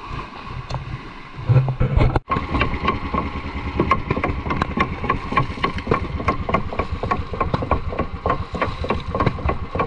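Small fishing boat's engine running steadily, a fast even chugging that starts after a short break about two seconds in.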